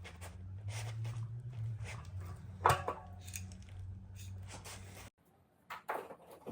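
Bicycle parts and tools being handled: small clicks and knocks, with one louder knock about two and a half seconds in that rings briefly. A low steady hum underneath cuts off suddenly about five seconds in.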